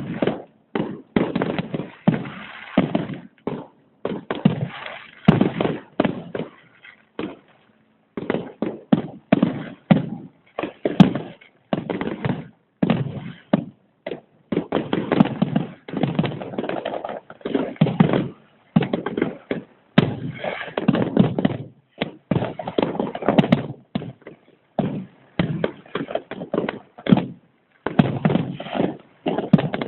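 New Year fireworks exploding in a dense, irregular barrage of overlapping bangs and crackles, with a short lull about a third of the way in.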